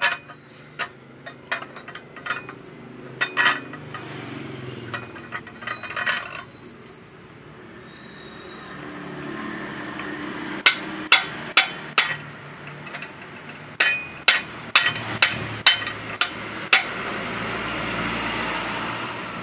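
Sharp metal clinks and taps from work on a motorcycle monoshock and its coil spring in a homemade steel-plate and threaded-rod spring press. They are scattered at first, with a brief high metallic ring about six seconds in, then come as a quick run of about a dozen in the second half, over a background noise that swells near the end.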